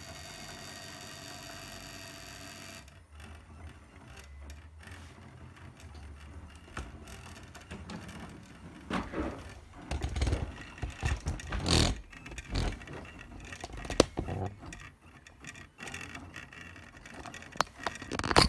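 Small stepper motors of a home-built plotter made from CD-ROM drive mechanisms moving the pen across the page: a steady whine for about the first three seconds, then uneven whirring and ticking as the axes start and stop. A few louder knocks and rubs come around the middle.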